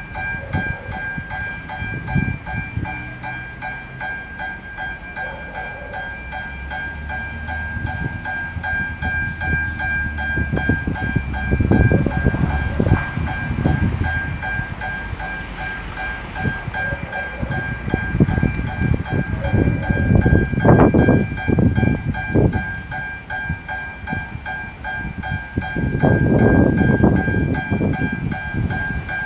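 Level-crossing warning bells ringing without a break in a fast, steady repeating ring while a train approaches. Louder low rumbles swell and fade several times over the ringing.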